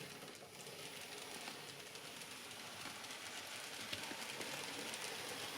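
N scale Scaletrains SD40-3 model locomotive running with a seven-car train: a faint, steady whir of the motor, gears and wheels on the track, with a few light clicks. Its gears are a little dry and not yet greased.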